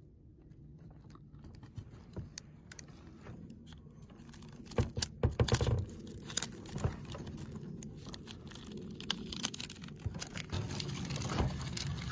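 Hands wrapping self-bonding silicone repair tape around an antenna cable connector: rustling and crinkling with scattered small clicks and taps, and a quick run of louder taps about five seconds in.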